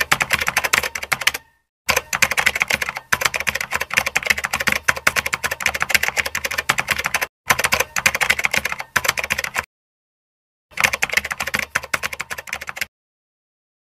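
Typing sound effect of rapid keystrokes clattering in runs of a few seconds each, broken by short silent pauses, as text is typed out on screen.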